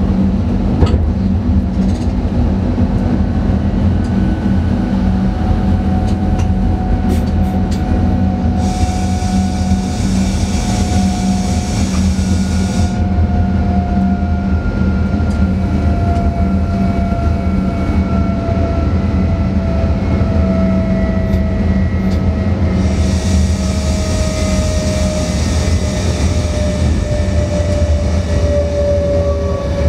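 Electric train running on the rails, heard from the driver's cab: a steady low rumble with a motor whine slowly falling in pitch. A hiss comes in twice, about nine seconds in and again about twenty-three seconds in, each lasting several seconds.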